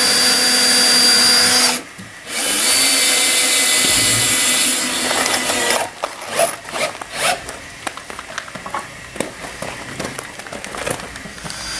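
Cordless drill/drivers running as screws are driven into a wooden log wall: two long runs of steady motor whine, broken by a short pause about two seconds in. From about six seconds on, scattered clicks and knocks follow.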